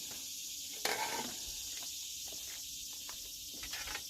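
A steady high hiss, with one short sharp knock about a second in.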